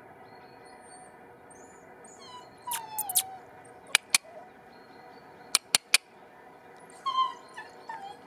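Borzoi puppies whining: a falling whine about two and a half seconds in and another about seven seconds in, with a few faint high chirps before them and several short, sharp clicks in between.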